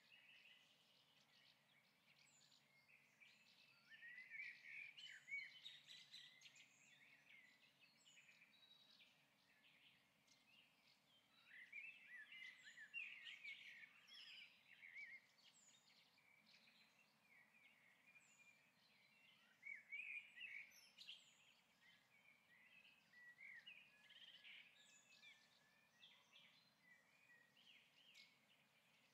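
Faint birdsong: several small birds chirping and twittering, rising in spells every few seconds, with thin high notes repeating every couple of seconds.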